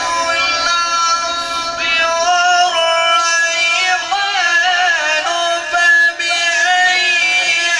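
A male qari reciting the Quran in the melodic, sung style, drawing out long ornamented notes that turn up and down in pitch.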